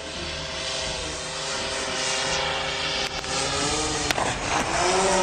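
Multirotor drone's motors and propellers whirring steadily, their pitch wavering in the second half, with a sharp click about four seconds in.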